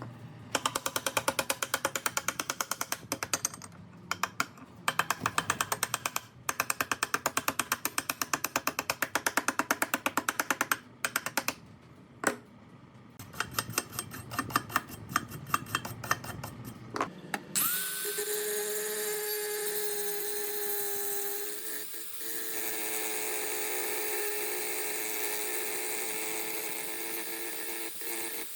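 Rapid, regular tapping for about the first two-thirds, then a small electric power tool starts and runs steadily with a high whine, its pitch shifting slightly partway through.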